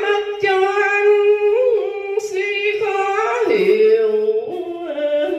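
A woman chanting a Vietnamese Buddhist poem on filial piety into a microphone, drawing each syllable out into long held notes that step up and down in pitch.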